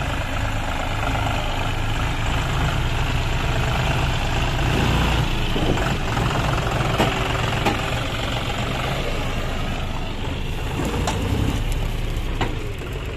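John Deere tractor's diesel engine running steadily as it pulls a trailer fully loaded with soil, with a few sharp clicks and knocks in the second half.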